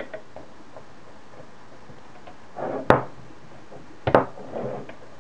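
Two sharp knocks, about three seconds in and again a second later, as a metal electronics case is handled and set against a wooden desk during unscrewing, with faint rustling around them.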